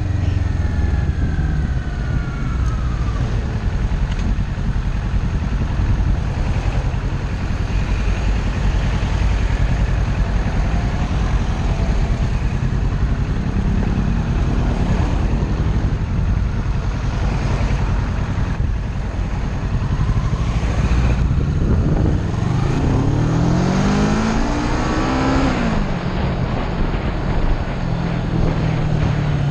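Kawasaki Ninja 650 parallel-twin engine running under way. In the last third its revs climb steeply as it accelerates, then drop sharply as it shifts gear.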